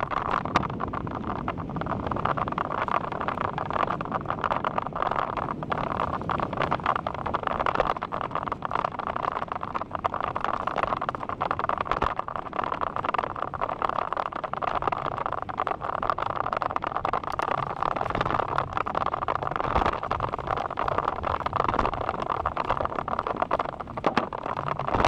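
Wind rushing over the microphone and tyres rolling on asphalt during a fast downhill bike ride, a steady rushing noise with frequent small knocks and rattles from the bumps in the road.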